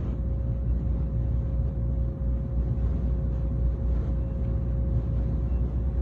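Aluminium melting furnace running with its air blower: a steady low rumble with a constant hum.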